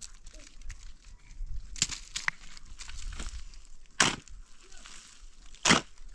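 Four sharp knocks, one to two seconds apart, the loudest near the end.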